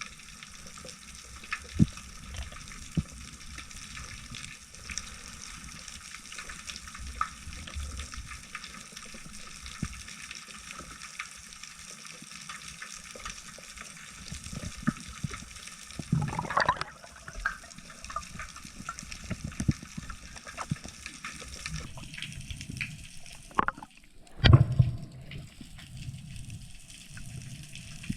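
Underwater ambience heard through a diving camera's housing: a steady hiss full of faint crackling clicks. Twice, a little past halfway and more strongly near the end, a brief louder rush of water.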